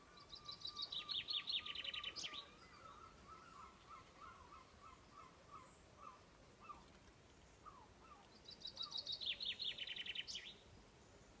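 Songbird singing two short songs about eight seconds apart, each a rapid run of high repeated notes lasting about two seconds and ending in a flourish. A fainter, lower series of notes can be heard between them.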